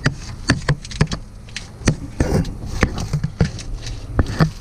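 Irregular knocks and clicks of PEX water line being pushed and pulled through the boat's interior, over a steady low rumble.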